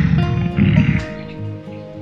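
A silverback gorilla's two loud, low, rough vocal bursts in the first second, over steady background music.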